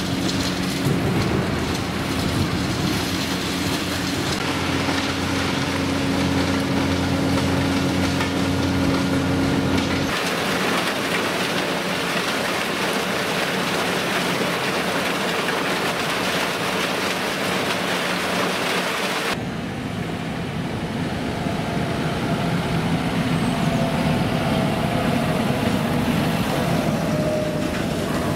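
Heavy diesel machinery of a tractor-driven wood chipping operation running: a steady multi-tone engine hum, changing abruptly to a rushing noise without the hum about ten seconds in, and back to the engine hum a little before twenty seconds, with a faint wavering whine near the end.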